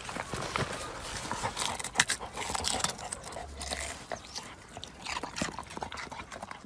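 Dog biting and gnawing at a white root vegetable in the ground: irregular crunches and sharp clicks.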